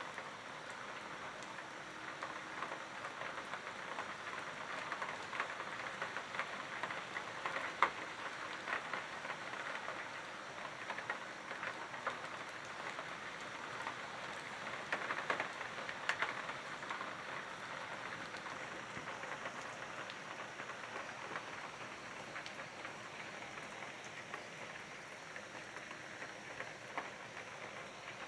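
Steady rain falling, a dense patter of drops with a few louder drop hits about eight seconds in and again around fifteen to sixteen seconds.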